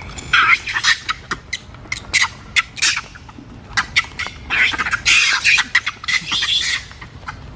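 Monkeys scuffling and shrieking in rapid runs of short, harsh squeals. The calls come thickest just after the start and again from about four and a half to seven seconds in.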